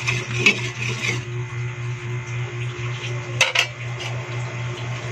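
A spatula stirring coconut milk in a stainless steel pot, then two sharp knocks of the spatula against the pot about three and a half seconds in, over a steady low hum.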